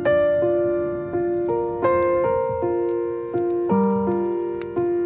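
Background solo piano music, with slow notes and chords that each strike and ring out as they fade.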